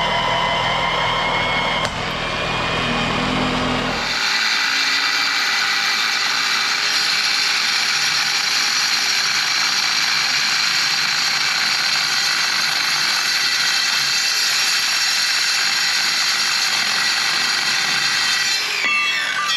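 Evolution metal-cutting circular saw cutting through steel plate: a steady, dense, high-pitched shriek of the blade in the metal that starts about four seconds in, with the motor winding down in falling pitch near the end. Before it, a lower, steady machine hum.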